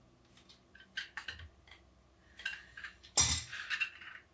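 Small metal clinks and taps of hand tools and winch parts on a workbench as a fitting is tightened with a gripping tool, with one louder knock about three seconds in.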